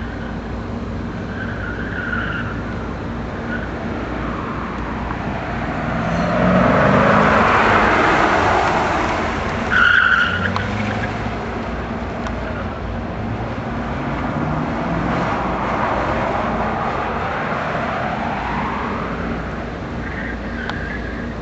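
C6 Corvette's V8 engine revving up and down as the car is driven hard through autocross cones, with short tyre squeals in the turns. It is loudest about six to nine seconds in, and a sharp tyre squeal comes about ten seconds in.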